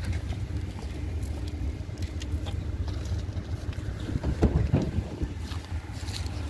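Shovel work in loose soil: scattered scrapes and clods of dirt landing as earth is backfilled around a plastic pedestal base, the loudest knocks about four and a half seconds in, over a steady low rumble.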